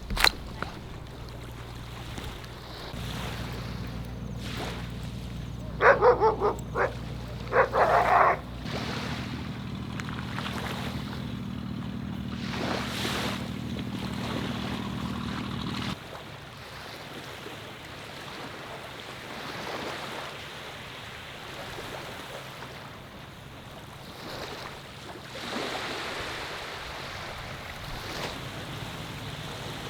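Sea waves washing onto the shore, swelling and fading. A dog barks about five times in quick succession a few seconds in, the loudest sound here, and a steady low hum runs underneath until it cuts off about halfway through.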